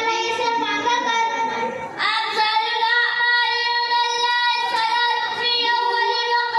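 Two boys' voices taking turns in a sing-song, chant-like delivery with long held notes; the second boy's voice takes over about two seconds in.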